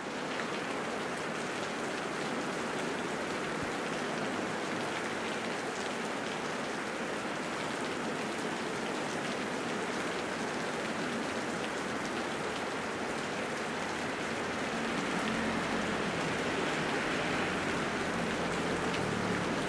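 Heavy rain falling steadily, a dense hiss with scattered drop hits. A low rumble comes up over the last few seconds.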